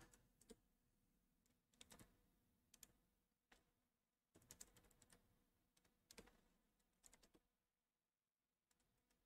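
Faint keystrokes on a computer keyboard, typed in short irregular bursts of a few keys at a time.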